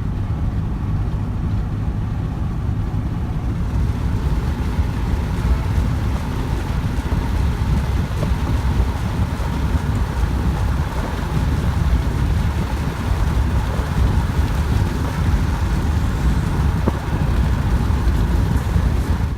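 Steady low rumble of a motor vehicle running, with no change in pace, cutting off suddenly at the end.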